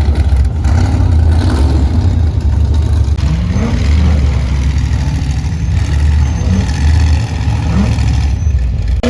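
Ultra4 off-road race cars' engines running in a steady low rumble, revved in several short rising blips as the cars crawl over the rocks.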